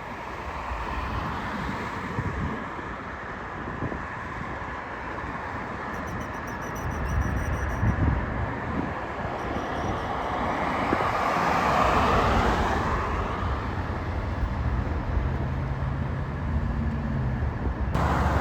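Outdoor road traffic: a steady rush of passing vehicles, with one swelling louder as it goes by about two-thirds of the way through, and a low engine hum near the end.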